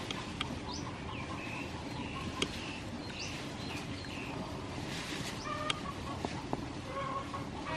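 Chickens clucking here and there in the background, with a few sharp clicks.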